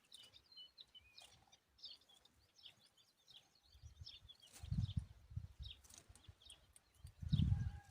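Small birds chirping: many short, high calls throughout. Low rumbling bursts come in about halfway through and again near the end, louder than the chirps.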